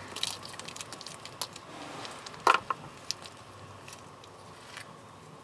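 Small clicks and taps from test leads and probes being handled and clipped on, the loudest pair about two and a half seconds in, over a faint steady hum.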